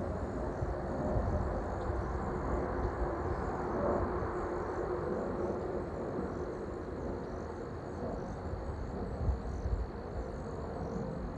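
Airbus A320 airliner passing on approach: a steady jet rumble carrying the whistling tones of the A320's fuel over-pressure protector (FOPP) vents under the wings. The whistle slowly fades as the plane draws away.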